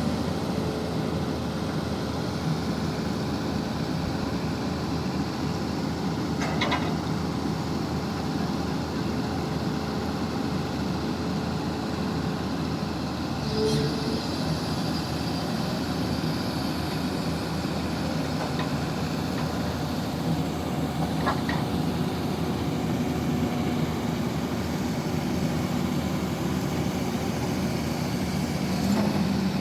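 XCMG 6800 horizontal directional drilling rig running steadily, with a short sharp sound three times at roughly seven-second intervals.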